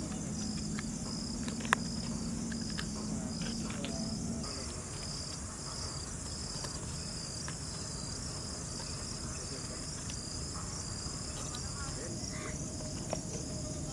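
Insects chirping in a steady high-pitched drone that pulses about twice a second. Scattered light clicks, the sharpest about two seconds in, come from plastic lids being handled and pressed onto disposable cups.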